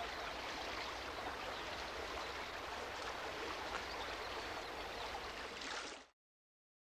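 Shallow river running over rocks in small rapids, a steady rushing of water. It cuts off suddenly about six seconds in.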